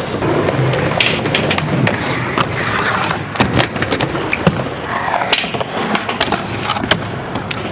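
Skateboard wheels rolling over ramp surfaces, with repeated sharp clacks of the board and trucks striking the ramp and its coping.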